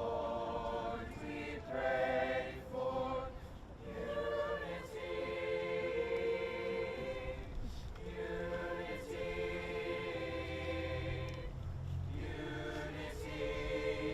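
A high-school choir singing, with short notes for the first few seconds and then long held chords, each broken off briefly between phrases.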